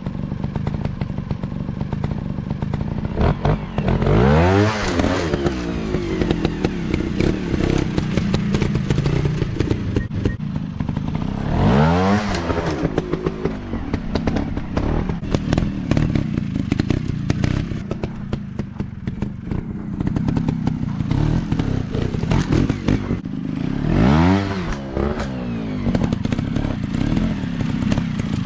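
Dirt bike engine running steadily, revved up and dropping back again three times, with clattering from the engine and ground.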